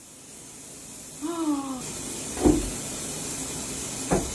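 A steady hiss like running tap water starts about two seconds in, with two sharp thumps over it. Just before it, there is one short falling vocal note.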